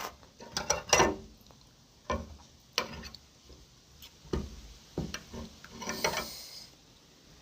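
Mukbang eating sounds from a bowl of bakso: a spoon clinking and scraping against the bowl in scattered short knocks, with a couple of longer slurping or swishing sounds.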